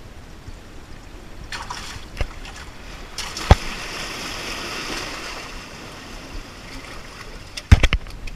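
Sea water washing and surging through the gaps in a rock breakwall, swelling to a rush midway. There is a sharp knock about three and a half seconds in and a cluster of heavy knocks near the end.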